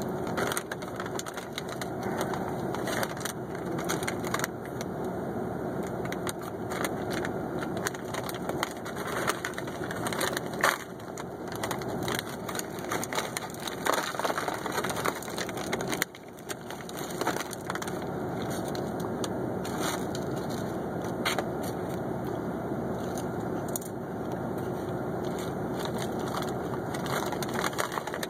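Crinkling and crackling of a laminated MRE ration pouch as it is handled, torn open and tipped out, with many sharp clicks throughout. The small hard cookies inside rattle out onto a foam tray.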